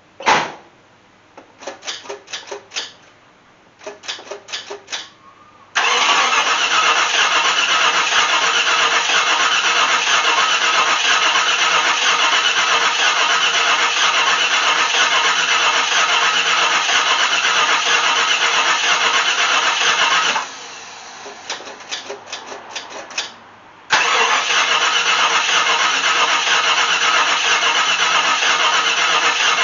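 Jeep Grand Wagoneer's AMC 360 V8 being cranked on the starter: a click, a few short cranks, then a long steady crank, a brief pause with a few short bumps about 20 seconds in, and another long crank. It does not catch; the owner thinks the engine is not yet drawing fuel through the new Motorcraft 2100 carburetor.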